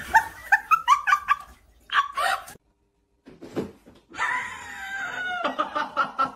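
A dog giving a quick run of short, high-pitched yips. After a brief silence comes a longer call falling in pitch, followed by more short calls.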